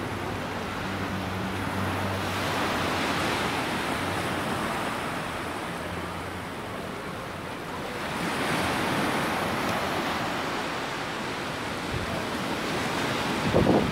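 Sea surf breaking and washing up on a sandy beach, swelling twice, with wind buffeting the microphone loudly just before the end.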